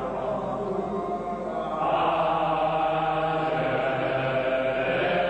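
A slow chant sung in long held notes, the notes changing about two seconds in.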